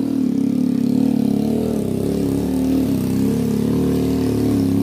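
Vehicle engine running steadily, its pitch wavering up and down.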